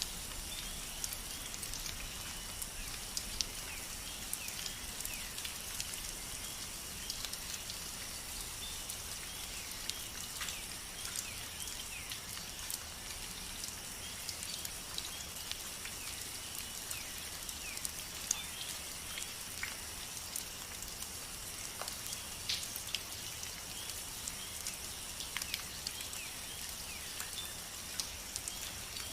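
Steady rain falling, with many separate drops ticking sharply on a surface close by, over a faint steady high-pitched hum.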